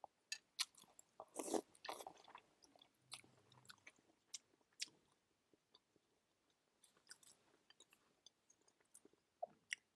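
A person eating noodles close to the microphone: faint chewing and wet mouth sounds with irregular small clicks. A short louder burst comes about a second and a half in.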